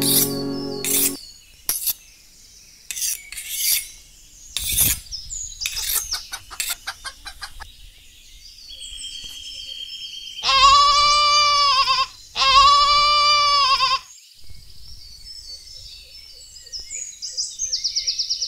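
Sharp clicks and taps, then two long, loud farm-animal calls of about a second and a half each, followed by faint bird chirps.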